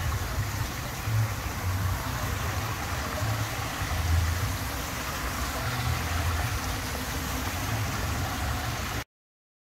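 Steady hiss of water running in an outdoor fountain pool, with a low uneven rumble underneath; it cuts off suddenly near the end.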